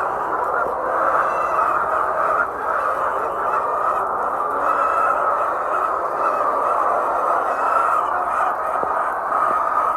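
A large flock of hens clucking together in a continuous, steady din.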